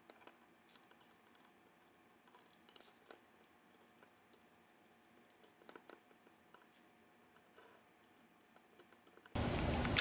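Faint, scattered small clicks and taps as screws, washers and a thin steel punch are handled against the Kel-Tec SUB-2000's polymer frame and the tabletop, with near silence between them.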